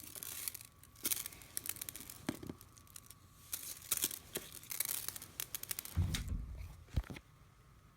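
Crunchy slime being squeezed and stretched by hand, giving off dense bursts of crisp crackling and popping in clusters. A low thump comes about six seconds in and a sharp knock about a second later.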